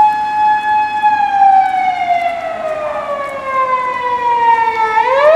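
Japanese police car siren wailing: it holds its high tone for about a second, falls slowly over about four seconds, then sweeps quickly back up near the end.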